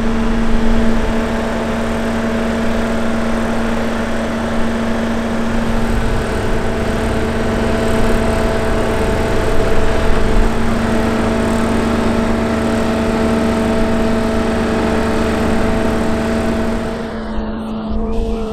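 Engine of a 100-tonne mobile boat-lift crane running steadily: a constant hum at one pitch over a low rumble.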